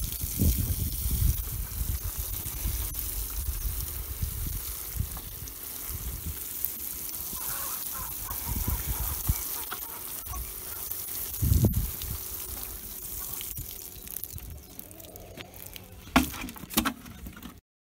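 Water showering from a watering can's rose onto wood-chip mulch in a raised bed, a steady spattering hiss. A dull thump comes about two-thirds of the way through, and a couple of sharp plastic knocks near the end as the cans are set down.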